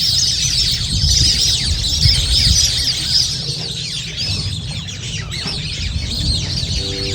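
A flock of birds calling over one another in a dense, continuous high chatter, squabbling, with a low rumble underneath.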